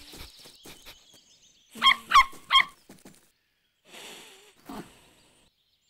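Cartoon puppy sniffing with faint quick ticks, then three short high-pitched yapping barks about two seconds in, followed by a soft rustling hiss.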